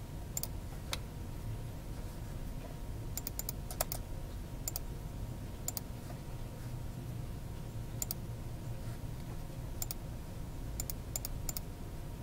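Computer mouse clicking at irregular intervals, sharp clicks that sometimes come in quick pairs or threes, over a low steady hum.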